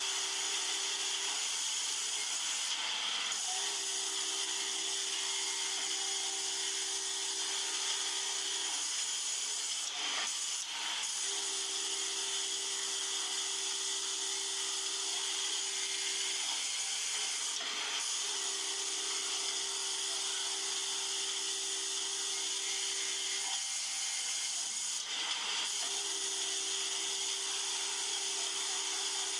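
Industrial sewing machine running in stretches of about five seconds with short pauses between, as a seam is sewn, over a steady hiss.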